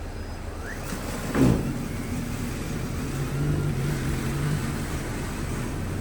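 An engine running steadily, with one brief, loud sound about a second and a half in that drops sharply in pitch.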